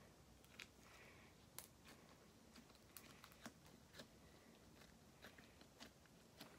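Near silence, with faint scattered clicks and small sticky pops of slime being kneaded and mixed by hand in a plastic container.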